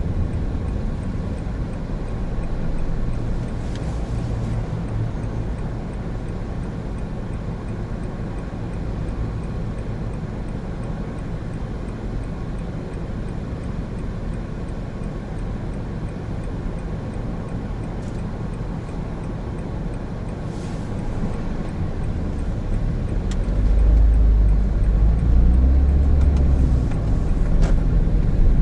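A 2017 Honda N-BOX Custom's 660cc turbo engine and tyres driving along with a steady low rumble; about 22 seconds in, the engine note rises and grows louder as the car picks up speed.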